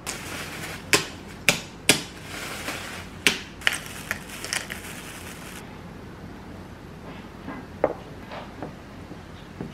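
Plastic bag crinkling while brittle dalgona honeycomb toffee is broken and shaken out of it onto an iced latte, with several sharp cracks. The crinkling stops suddenly, leaving a few light taps and knocks.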